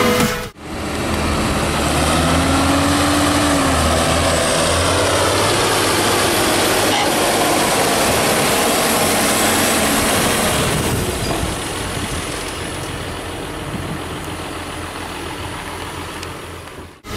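John Deere 6630 tractor's diesel engine running as it drives over a pile of cut grass. Its pitch rises and falls once a couple of seconds in, and the sound eases off after about eleven seconds.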